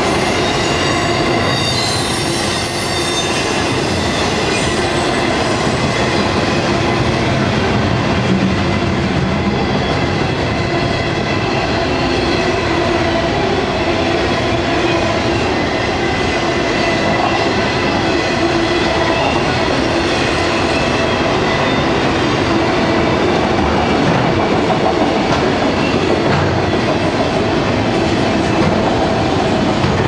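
Freight train of autorack cars rolling past at speed, a steady loud rumble and rattle of wheels on rail with high, steady squealing tones from the wheels running through it.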